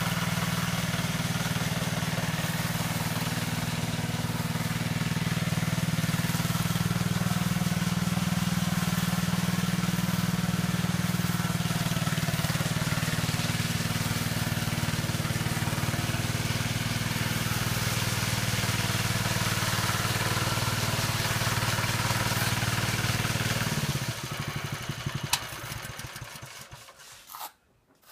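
Walk-behind power trowel running steadily, its small petrol engine droning while the blades turn on the concrete slab to burnish it. Near the end the engine sound stops abruptly and everything drops away.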